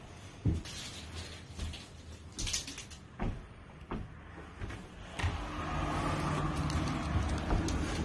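A few knocks and a sliding glass door running open about two and a half seconds in, then a steady low outdoor rumble from about five seconds in.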